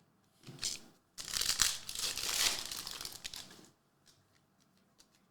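Plastic foil wrapper of a Prizm basketball card pack being torn open and crinkled, a crackly rustle of about two and a half seconds after a brief lighter rustle.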